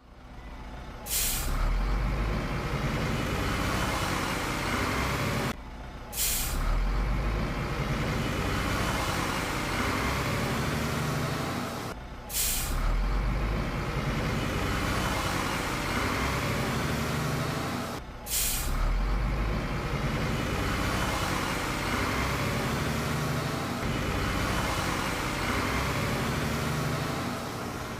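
A train running on the Oigawa Railway, heard in four cut-together takes over a steady low rumble; each take opens with a short, loud hiss.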